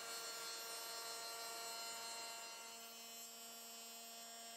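Faint steady electrical hum made of several held tones, with a lower tone joining about two seconds in.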